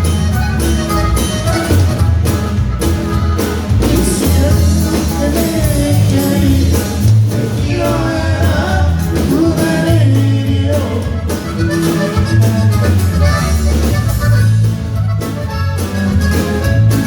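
Norteño band music with an accordion carrying the melody over a steady, bouncing bass beat.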